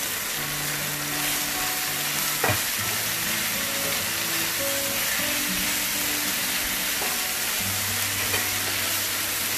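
Chicken and vegetables sizzling in a hot nonstick wok on high flame while being stir-fried with a silicone spatula. There is one sharp knock about two and a half seconds in.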